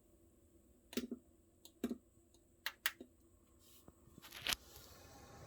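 A handful of sharp clicks and knocks. Near the end a fan starts up, and its steady rushing noise rises and keeps going.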